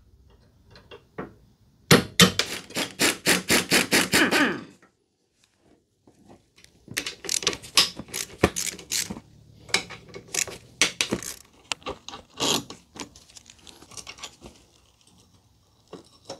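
Hand tools working the steering stem hardware of an '87 Honda 250X ATV: about two seconds in, a fast run of evenly spaced metallic clicks for a couple of seconds, then, after a short silence, irregular clinks, knocks and scrapes of tools and parts.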